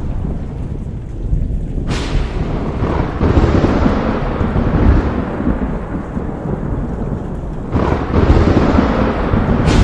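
Thunderstorm: thunder rumbling low and continuously over steady rain, with sharp cracks of thunder about two seconds in and again at the very end, and a fresh roll building near the end.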